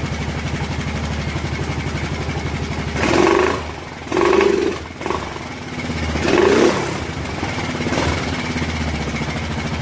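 Kawasaki Brute Force 750 V-twin engine idling with an even pulse, revved in four short surges about three, four, six and a half and eight seconds in, dipping briefly between them before it settles back to idle. It is running just after its first start following a top-end rebuild, with its carburettors leaking from the float bowls.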